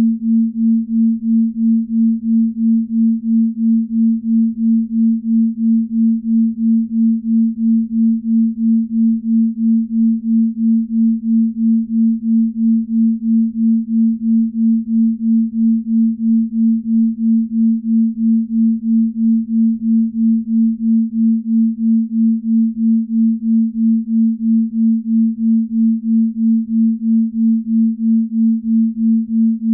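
Binaural-beat sleep tone: a single pure tone a little above 200 Hz, pulsing evenly about twice a second as the two slightly detuned tones beat against each other.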